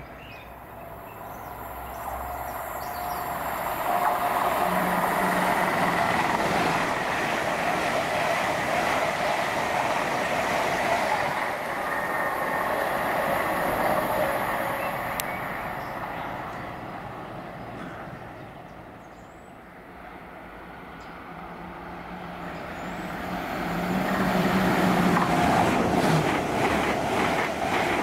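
Passenger trains passing through a station at speed. One pass builds over a few seconds, holds with a steady rush, and fades away. A second train builds up loud again near the end.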